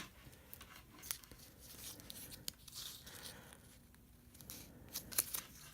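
Faint, scattered small clicks and rustling of the plastic light sphere and its light string being handled, with a few sharper clicks near the end.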